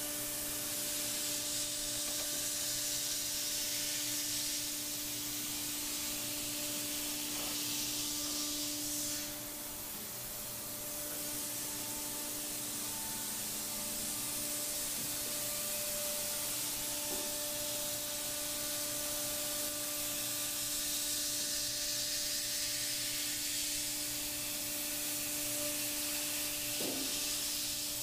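Thermwood 5-axis CNC router running steadily: a spindle hum with a higher overtone under a constant hiss of compressed air blowing on the cutter, as a 1/8-inch high-speed cutter routes holes into polyethylene. The sound dips briefly about nine seconds in.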